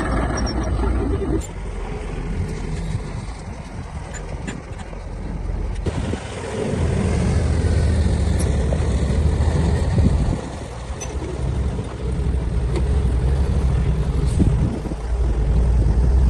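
Heavy diesel construction machinery running with a low, steady rumble. Its level jumps abruptly a few times.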